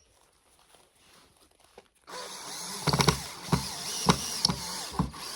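Near silence for about two seconds, then a cordless drill running, driving screws into 2x8 lumber with a string of short, sharp jolts.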